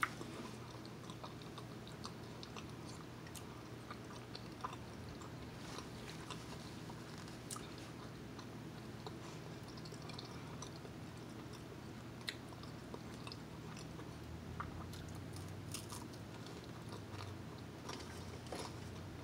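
A person quietly chewing a mouthful of garlic bread, with faint wet mouth clicks scattered throughout, over a low steady hum.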